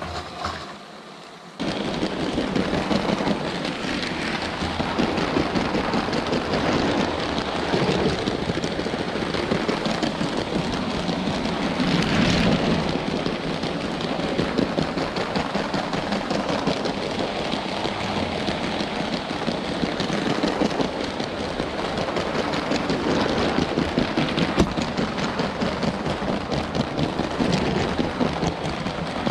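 LEGO train rattling along plastic track, heard up close from a camera riding on the train: a dense, continuous crackling rattle that begins abruptly about a second and a half in.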